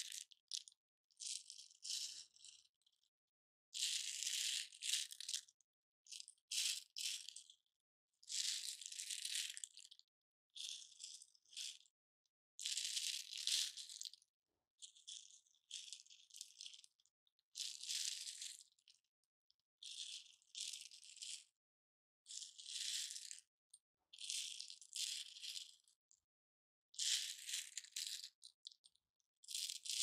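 Dried lentils rattling in cupped hands as they are shaken and let trickle between the palms. The rattle comes in short, high-pitched bursts about every two seconds, with silence between them.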